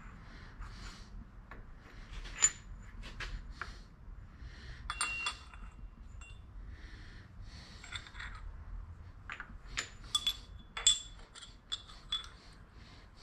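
Metal-on-metal clinks and taps as steel setup pieces (a 1-2-3 block and a parallel) and the steady rest are fitted into a milling-machine vise. Scattered light clicks and a few sharp ringing clinks, the loudest about two and a half seconds in and again near eleven seconds.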